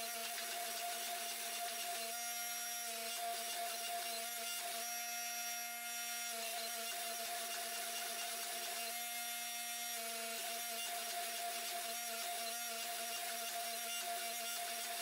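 Hydraulic forging press running with a steady motor and pump whine while its dies squeeze a hot steel billet to draw it out; about four times a harsher, buzzier sound comes in for a second or so as the press works.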